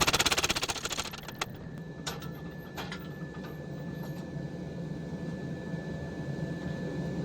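Mechanical power hammer pounding a hot forge-welded billet in rapid, even blows that stop about a second in. A few single clanks of metal follow, then a steady machine hum with a faint high whine.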